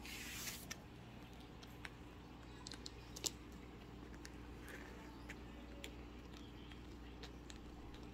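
Faint, scattered clicks and scratches as a playing kitten's claws catch on denim jeans and a shag rug, with a brief rustle right at the start and the sharpest click about three seconds in.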